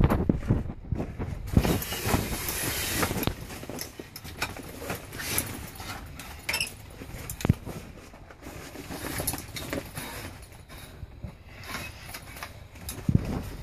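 Canvas tent fabric rustling, with scattered knocks and clicks as a metal tent rail is handled and fitted into place. There is a longer stretch of rustling about two seconds in.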